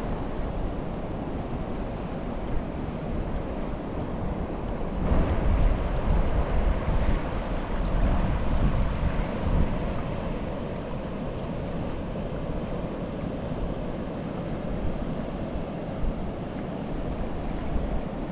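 Small waves lapping at a sandy shore under wind rumbling on the microphone, the wind stronger for a few seconds about a third of the way in.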